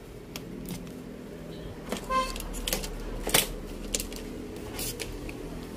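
Small sharp clicks and taps of hands working the flat ribbon cables and their plastic connectors on an LED TV panel's board as a ribbon is unplugged. The loudest click comes a little past three seconds in, and there is a brief squeak about two seconds in.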